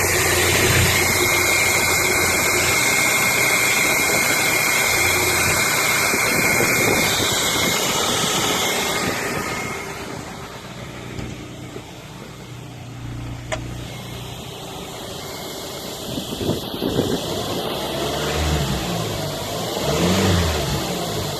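Audi A3 8P's 1.6 BSE four-cylinder petrol engine idling smoothly and firmly with no misfires, a thin steady whine over it at first. The sound drops in level about ten seconds in. Near the end the engine is revved briefly twice, rising and falling in pitch each time.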